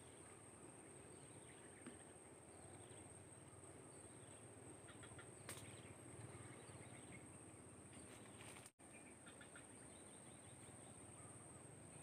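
Near silence: faint outdoor background with a few faint, short chirps and soft ticks around the middle.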